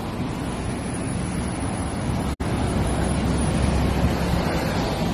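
Wind buffeting a phone microphone outdoors, a steady low rushing noise mixed with street traffic, slowly growing louder; the sound cuts out for an instant about two seconds in.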